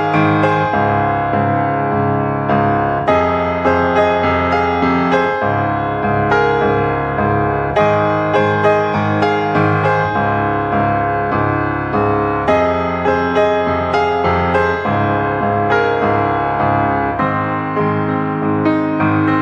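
Background piano music: a gentle keyboard piece with a steady run of notes.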